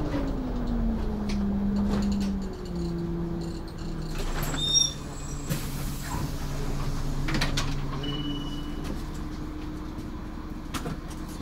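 Renault Agora V2 city bus's engine and transmission, heard from the driver's area, falling in pitch as the bus slows and then running steadily at a lower pitch. About halfway through there is a short hiss of air, with a brief high beep and a few clicks after it.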